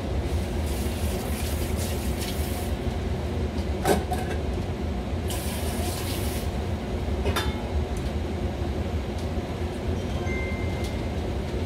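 Steady low rumble and hiss of a gas stove burner heating an empty stainless steel pot, with a light click about 4 seconds in and another about 7 seconds in.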